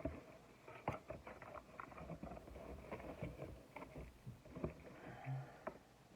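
Irregular light knocks, taps and rustling of objects being handled, with a brief low hum about five seconds in.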